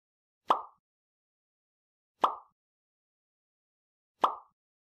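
Three short, sharp hits about two seconds apart, each dying away quickly, with dead silence between them.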